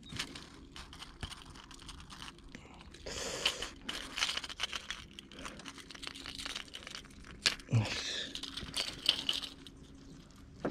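Clicks, scrapes and crinkling rustles of hands working a crankbait's treble hook free from a largemouth bass's mouth, with denser bursts of rustling about three seconds in and again near eight seconds.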